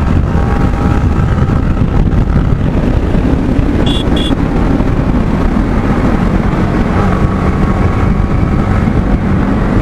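Motorcycle ride heard on a rider-worn microphone: steady wind rush over the mic with the engine running underneath. Two short high beeps come close together about four seconds in.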